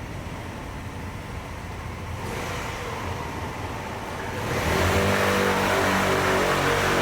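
A motor vehicle's engine running with a low steady hum, then growing much louder about two-thirds of the way in as it revs up or comes close.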